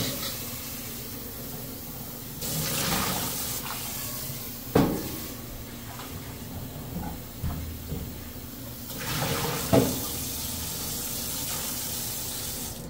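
Kitchen faucet running into a stainless steel sink while a cooking pot is rinsed under it, with louder gushes twice as water is poured out. Two sharp knocks, about five and ten seconds in, as the pot is handled.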